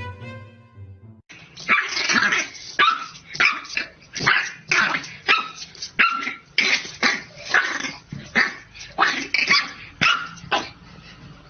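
French bulldog puppy barking at its own reflection in a mirror: a rapid run of short, sharp barks, about two to three a second, starting about a second in.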